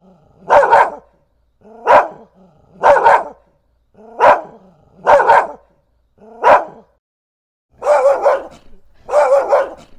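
A dog barking repeatedly, about one bark a second, some of the barks coming in quick pairs; the last two barks, near the end, are longer and drawn out.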